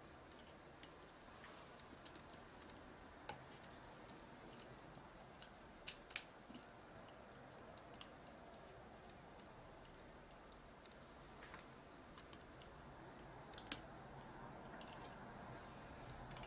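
Faint, irregular small clicks and ticks of a small screwdriver driving the screws that hold a camcorder tape deck's drum motor to its metal chassis.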